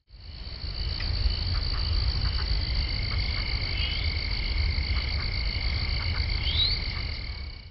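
Night-time nature ambience: a steady chorus of high, fast-pulsing chirps with a low rumble beneath, and two short rising calls partway through. It fades in at the start and cuts off abruptly at the end.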